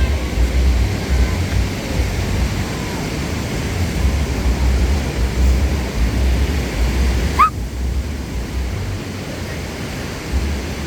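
Ocean surf washing on the beach, with wind rumbling on the microphone. A short rising squeak cuts through once about seven seconds in.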